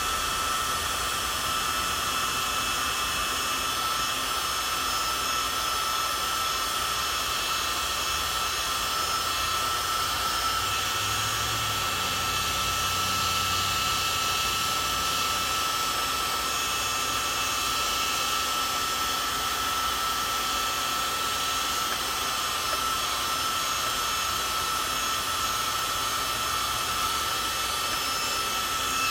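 Steady rushing air with a constant high whine, like a small blower motor running without a break.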